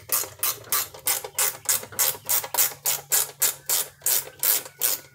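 Ratcheting wrench clicking in an even, rapid series, about four clicks a second, as an engine-cover bolt is run in.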